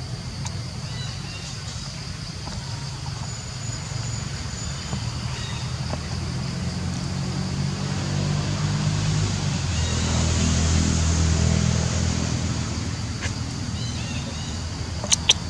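Low engine rumble of a passing motor vehicle, growing louder to a peak about two-thirds of the way through and then fading, over a faint steady high-pitched hum. A few sharp clicks near the end.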